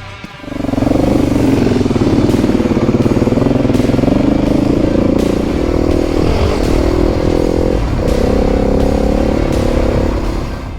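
Adventure motorcycle engine running hard under throttle while riding. It swells up about half a second in, holds steady, and eases off near the end.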